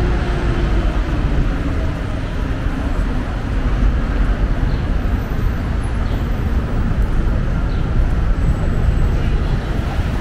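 Steady city street traffic noise from cars and buses on a busy avenue, with a constant deep rumble.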